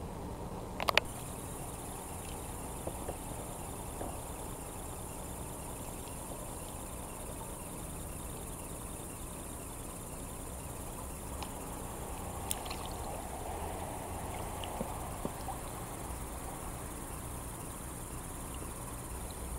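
Crickets trilling in a steady, high, even chorus at dusk, with one sharp knock about a second in and a few faint clicks later.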